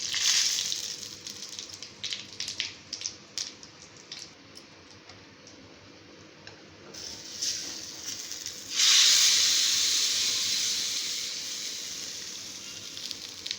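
Hot oil sizzling in a small pan as spices go in for a tempering, with the sharp pops of mustard seeds crackling over the first few seconds. About nine seconds in, a loud new sizzle starts and slowly dies away.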